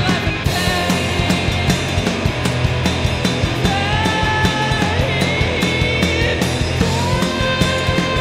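Live rock band playing: electric guitar, bass and drum kit, with long held high notes that step up in pitch over a steady beat of drum hits.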